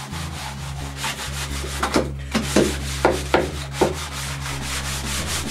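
Hand sanding with a non-directional drywall sanding screen on a handheld sander, rubbing back and forth over cured epoxy primer on a countertop to knock the gloss off it so the next coat bites. A few sharper strokes come about two to four seconds in.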